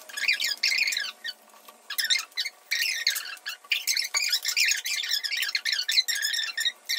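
Sped-up voices of two girls talking: their speech is pitched up into quick, high, squeaky chattering, in short spurts with gaps between.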